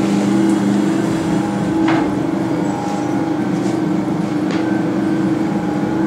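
RC-2000 2-ton roller-clutch terminal crimping press running with a steady motor hum, with two sharp clicks, about two seconds in and about four and a half seconds in.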